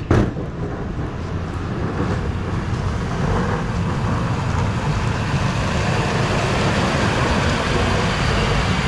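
Pickup plow trucks drive up and pass close on a slushy road, their engines and tyres making a steady noise that slowly grows louder. A sharp thump comes right at the start.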